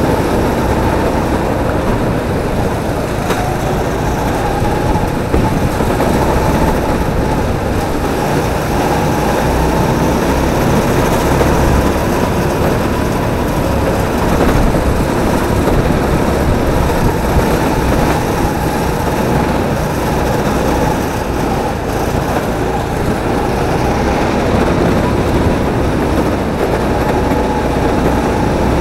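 Drift kart's engine running at speed, heard from on board the kart: a loud, steady din with a faint whine that rises and falls a little.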